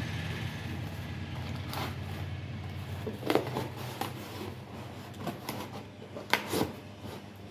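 White paperboard cake box being folded shut by hand: scattered rustles and clicks of the flaps being creased and tucked in, the sharpest about three seconds and six seconds in, over a steady low hum that fades after about three seconds.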